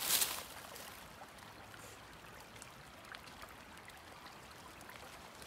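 Shallow creek trickling faintly and steadily. A brief rustle is heard right at the start.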